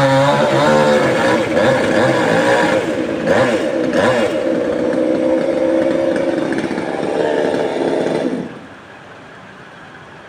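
Chainsaw running at high revs, its pitch wavering at first, then stopping abruptly about eight seconds in.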